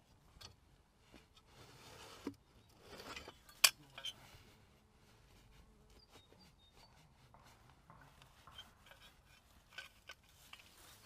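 Hand-handling noises: rustling and rubbing as a foam strip sealing a beehive entrance is pulled away, with a few clicks, the loudest a single sharp click about three and a half seconds in.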